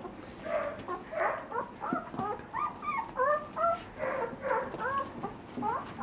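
A litter of eight-day-old borzoi puppies squeaking and whimpering, many short calls that bend up and down in pitch, overlapping several a second.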